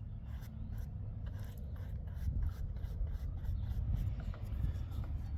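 Fingers rubbing and pressing a glued paper patch onto a torn paper speaker cone, a run of short, irregular scratchy rustles, over a steady low rumble.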